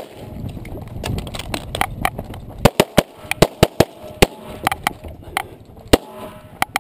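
Semi-automatic pistol fired in a fast string of shots, many in quick pairs, as the shooter engages target after target; sharp cracks close to the microphone.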